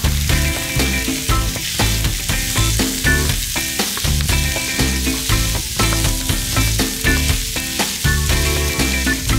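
Ground beef sizzling in hot oil in a skillet as it is pressed and broken up with a plastic meat chopper. Background music with a steady beat plays over it.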